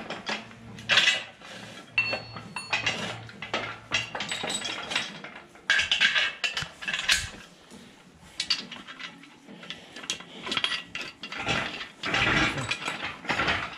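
Irregular metal clanks and clinks from a steel engine hoist as its boom, hook, chain and pins are handled and adjusted.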